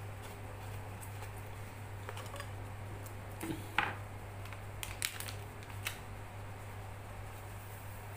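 A few light clicks and taps of hands handling a portable blender's plastic jar and a coffee sachet, loudest a little under four seconds in, over a steady low hum. The blender motor is not running.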